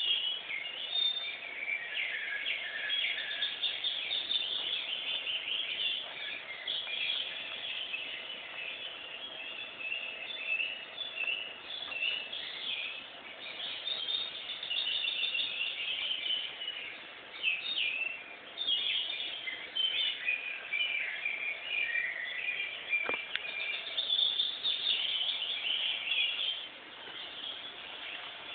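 Many small birds chirping and twittering at once in a dense, continuous chorus, easing off near the end.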